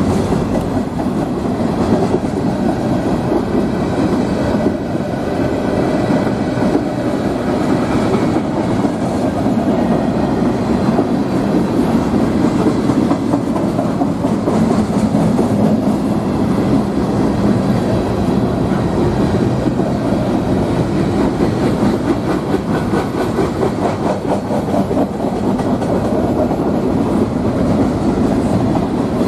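CSX manifest freight train rolling past, its cars' wheels running over the rail in a steady, loud rumble with no break.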